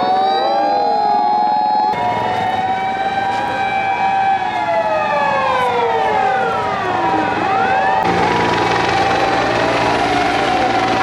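Several Japanese fire engine sirens wailing at once: overlapping tones rising and falling over a long held high note. The mix changes abruptly twice, and a low engine rumble comes in under the sirens near the end.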